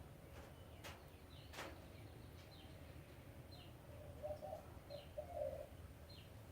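Hunter hybrid ceiling fan running on its low setting: a faint steady hum with a short high chirp about once a second. A low coo sounds about four to five seconds in.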